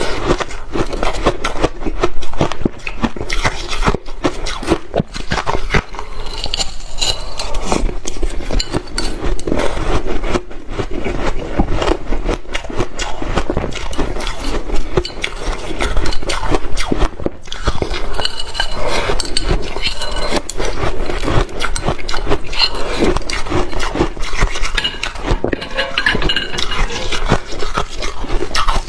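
Shaved ice being scraped and picked at with chopsticks in a dish and crunched, a dense, continuous run of close crackling crunches, scrapes and clinks.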